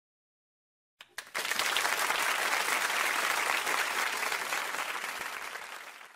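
Crowd applauding: a few first claps about a second in, then a dense steady applause that eases slightly and stops abruptly at the end.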